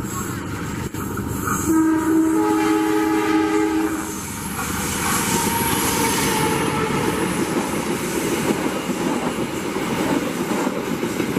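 KAI CC 203 diesel-electric locomotive sounding its horn in one chord of several notes, about two seconds long, as it approaches. Then its engine and wheels rumble past close by, followed by passenger coaches rolling past clattering over the rails.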